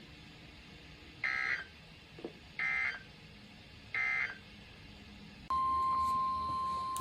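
Three short, buzzy bursts of EAS/SAME digital data tones from a NOAA Weather Radio broadcast, each well under half a second and about a second and a half apart: the end-of-message code closing the watch message. About five and a half seconds in, the steady single-pitch NOAA Weather Radio warning alarm tone starts.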